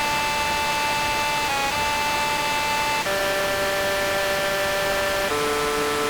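Looped singing sound effect: long held notes in a flat, steady tone, with a short dip about a second and a half in and then two steps down to lower notes, over a constant static hiss.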